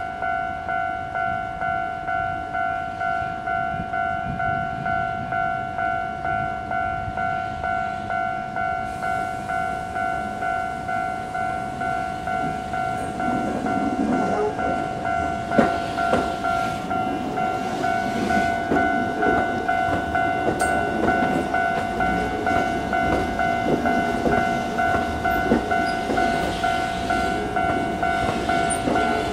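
A railway level-crossing warning bell rings in an even, repeating two-tone pulse. About halfway through, a Keihan electric train comes through, rumbling, with clicks of the wheels over rail joints.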